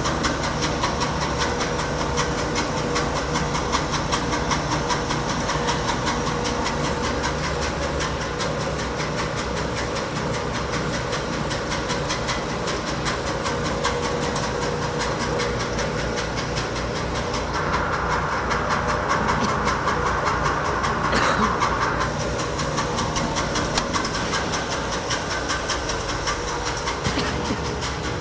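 Littleford 130-litre plow mixer running with its mixer and chopper drives, a steady mechanical drone with a hiss. The hiss grows brighter for a few seconds about two-thirds of the way through.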